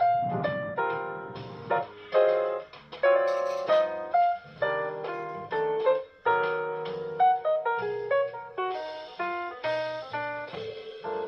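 Background music: a melody of separate piano notes, each struck note dying away before the next.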